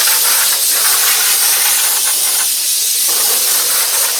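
Loud, steady hiss of rushing air.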